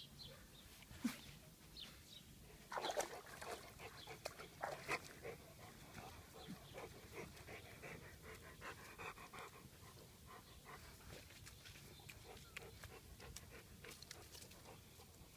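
A high-content wolfdog panting, a run of quick breaths that is loudest about three seconds in and fades after about ten seconds.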